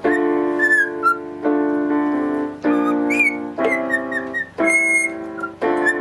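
Cockatiel whistling short chirping notes over chords played on an electronic keyboard, with a new chord about once a second.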